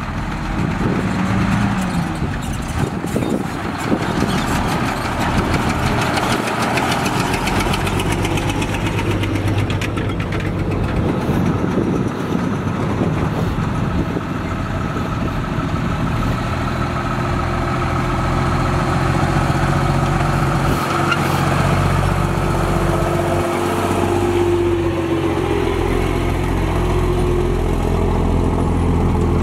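Heavy diesel engines of dump trucks and a bulldozer running as the trucks drive slowly past on a dirt road. The engine hum grows stronger in the second half as a truck passes close by.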